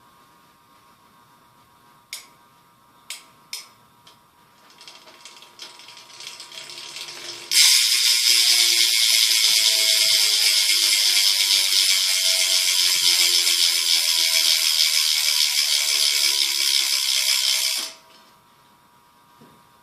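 Stock Quando sealed rear hub on a BMX bike freewheeling with its pawls ratcheting in a fast, continuous buzz for about ten seconds, pretty loud, then stopping abruptly. A few knocks from the bike being handled come first.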